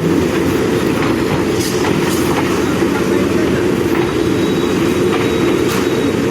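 Manitou backhoe loader's diesel engine running steadily under load, with a few light clanks over it.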